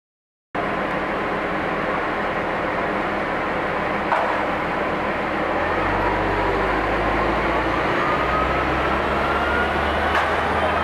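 Busy city street traffic, steady, with a deeper low rumble joining about six seconds in and a faint rising whine under it. A single sharp knock about four seconds in.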